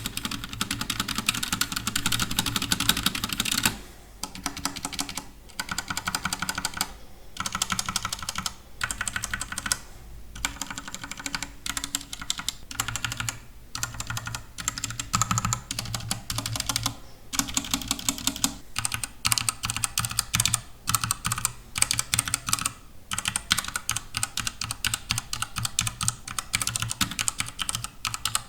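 Redragon K630 mechanical keyboard with HyperX pudding keycaps being typed on fast, a dense run of key clacks broken by a few short pauses.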